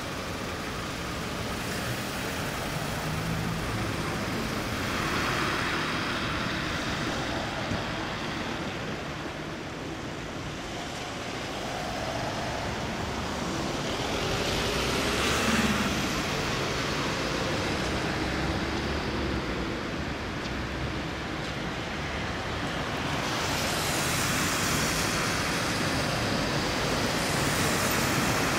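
City street traffic: road vehicles passing in several rising and falling swells over a steady low rumble, with a V3A-93 articulated tram running slowly through a right-hand curve.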